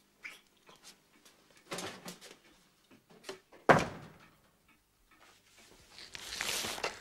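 A few soft knocks, then a wooden door shut with a sharp thud about four seconds in. A rustling hiss rises near the end.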